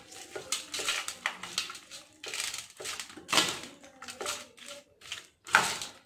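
Steel spoon scraping and clinking against a wide stainless-steel plate in repeated, irregular strokes while cooked rice is mixed. The loudest scrapes come about three and a half seconds in and again near the end.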